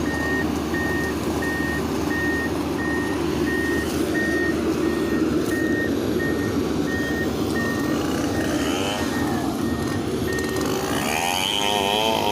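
Excavator's travel alarm beeping at a steady pitch, about one and a half beeps a second, over its diesel engine running steadily. The machine is tracking.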